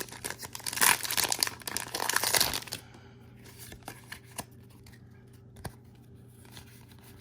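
Foil Pokémon booster pack wrapper being crinkled and torn for about the first three seconds, then a quieter stretch with a few light clicks as the cards are handled.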